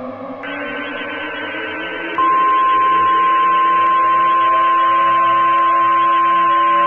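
Emergency-alert audio: a low droning hum with slowly falling tones, joined about half a second in by static hiss, then about two seconds in a loud steady alert tone starts and holds over it.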